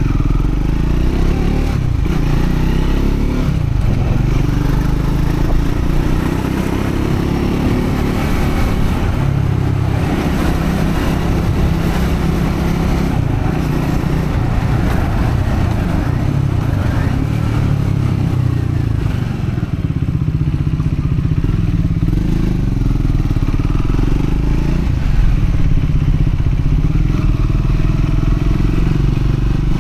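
Triumph Scrambler 400X's single-cylinder engine running under way on a ride, its revs rising and falling several times with throttle and gear changes. The bike is being run in at moderate revs.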